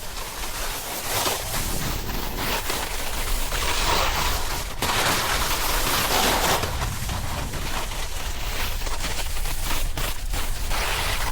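Snowboard sliding and scraping over snow, a rough continuous hiss full of sharp crackles, with wind rumbling on the camera microphone; it swells for a few seconds in the middle.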